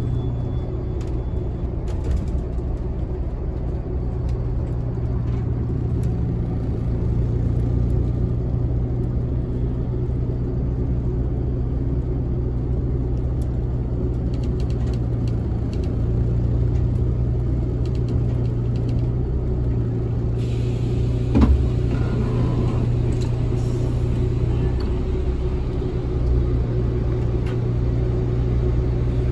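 Steady low engine and road rumble heard from inside a moving city bus, with one brief sharp knock a little past two thirds of the way through.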